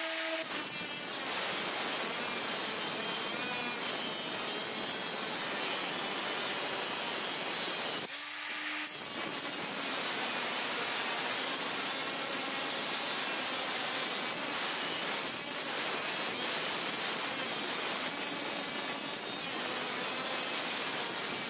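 An 18-volt brushless cordless angle grinder running steadily, its cut-off disc grinding a straight cut into a metal sheet as it is pushed along a guide. The cut eases briefly about eight seconds in, then carries on.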